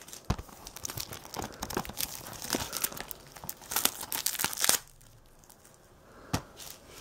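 Plastic shrink wrap being torn and peeled off a disc case: a run of crackling, snapping rips that goes quiet almost five seconds in, with one more crackle shortly before the end.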